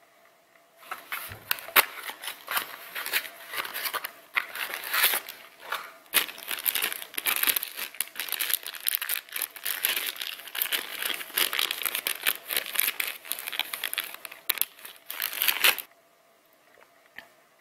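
A clear plastic bag crinkles and tears as a replacement air-nailer piston is unwrapped by hand: continuous crackling and rustling with small sharp snaps, which stops abruptly near the end.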